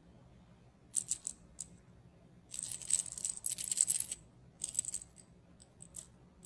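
A small toy dangled on a string rattles in short bursts as a kitten bats and grabs at it, with a longer spell of steady rattling in the middle.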